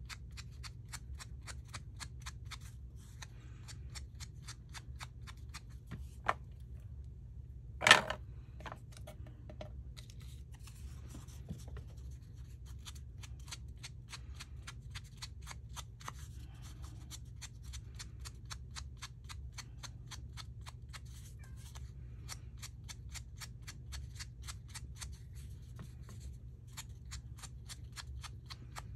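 A craft dauber dabbing colour onto paper pieces: quick, even taps about four a second, pausing briefly before a sharp knock about eight seconds in. A low steady hum sits underneath.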